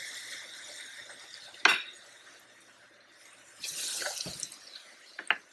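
Coxinhas deep-frying in hot oil in a small pan: a steady sizzle that fades over the first two seconds and swells again about four seconds in as a metal slotted spoon turns them, with a sharp click a little under two seconds in and another near the end.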